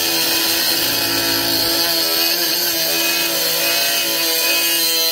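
Snap-on 14.4 V cordless inline die grinder with a cutoff wheel, set to its lowest speed, cutting steel angle: a steady motor whine under load over the loud hiss of the abrasive wheel grinding metal.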